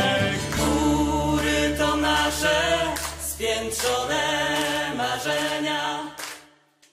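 Song with several voices singing together, fading out near the end.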